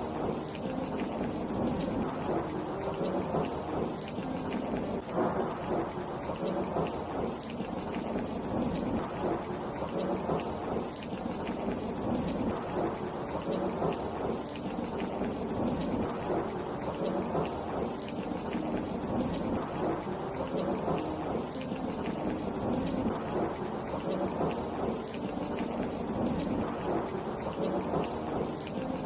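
Steady heavy rain: a dense, even wash of falling water with scattered drops pattering on surfaces.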